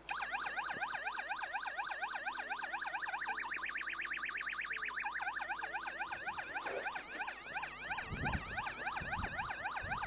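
Velleman MK113 siren sound generator kit sounding through its small speaker: an electronic siren wail sweeping rapidly up and down, several times a second, without a break.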